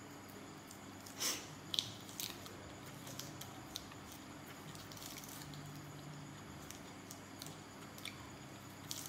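Fresh raw greens being snapped and torn by hand, bitten and chewed close to the microphone: a few short crisp snaps and clicks, the loudest in the first two seconds, over a faint low steady hum.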